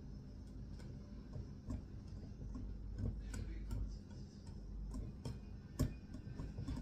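Hand wire whisk beating a mixture in a bowl, its wires clicking and tapping against the bowl at an uneven pace, with one sharper tap near the end.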